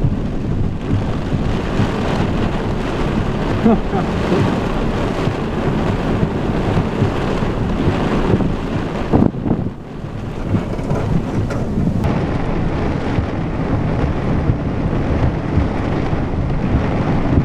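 Strong, gusty squall wind rushing and buffeting the microphone, with rain, easing briefly about nine and a half seconds in before picking up again.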